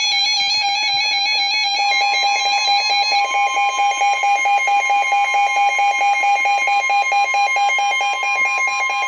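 Emergency Alert System attention signal: a loud electronic alarm tone with a rapid pulsing, joined about two seconds in by a second, higher steady tone.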